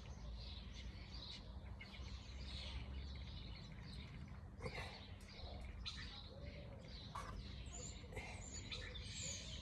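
Birds chirping and calling in short high notes, some sliding down in pitch near the end, over a steady low background rumble.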